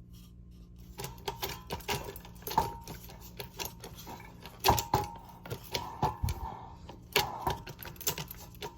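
Hunter Biltmore ceiling fan motor running with a steady low hum under irregular clicking and knocking, some knocks with a short metallic ring. The owner puts the terrible sound down to bad bearings.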